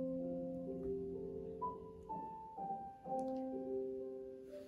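Slow, gentle piano music: single held notes and chords entering one after another and slowly fading away.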